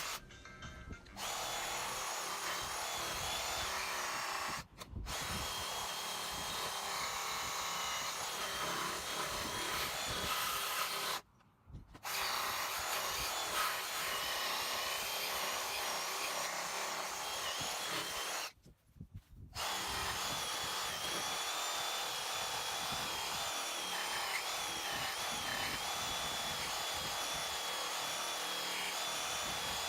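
Reciprocating saw with a bimetal blade cutting through wood and the steel screws and lag bolt driven into it, running steadily with a high wavering whine. It stops briefly four times, each pause under a second.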